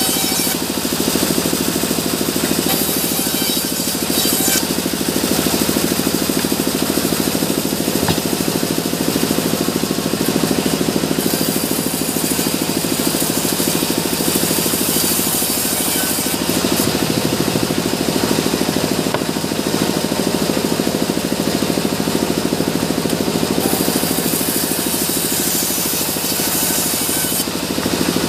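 Sawmill log bandsaw running steadily under its drive, with the blade hissing through the log in stretches of a few seconds, the longest about a third of the way in and again near the end, as boards and bark-edged slabs are cut off.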